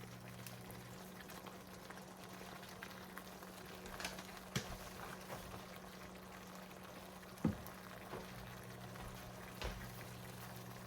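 Tomato sauce simmering in a pan, a soft steady bubbling over a low hum, with a few light clicks and one sharper knock about seven and a half seconds in.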